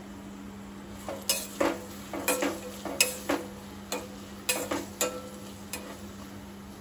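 Metal spoon stirring chopped onions in a stainless steel pot, knocking and scraping against the pot's side. There are about ten sharp clinks, irregular and roughly every half second, each with a brief metallic ring. They begin about a second in.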